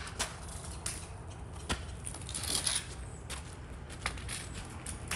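Lengths of PVC pipe being laid out on the ground: scattered light knocks and clatter, with a crunching scrape about halfway through, over a steady low rumble.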